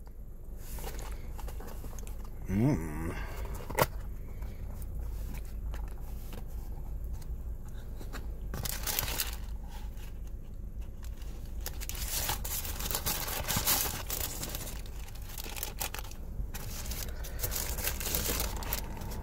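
A cardboard takeout box being handled and opened and a burger's paper wrapper being unfolded: paper crinkling and rustling in repeated bursts, with a sharp click about four seconds in. A steady low hum lies underneath.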